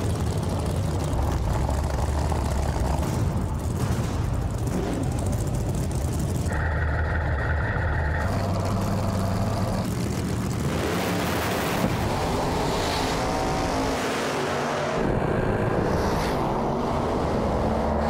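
Drag-racing cars' engines running loudly at the starting line of a drag strip.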